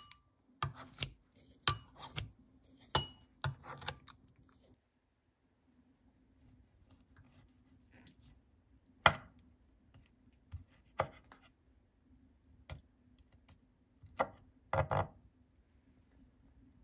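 Kitchen scissors snipping abalone innards in a glass bowl, several sharp snips and clinks over the first few seconds. After a short pause a kitchen knife knocks on a wooden cutting board a handful of times while the abalone's teeth are cut out.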